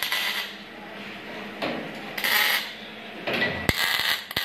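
Stick arc welding on a steel almirah frame: about three short bursts of crackling, sputtering arc hiss, each a second or so long, with a couple of sharp metal knocks near the end.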